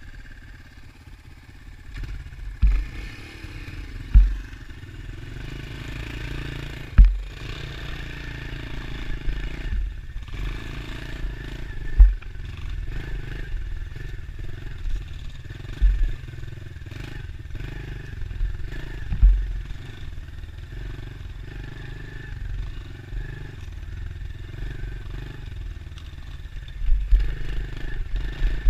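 Dirt bike engine running as it rides a wooded single-track trail, rising and falling with the throttle, with sharp heavy thumps every few seconds and a cluster of them near the end.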